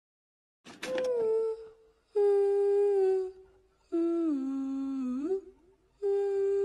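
A person humming a slow tune of four held notes; the third note is lower, sliding down and then back up.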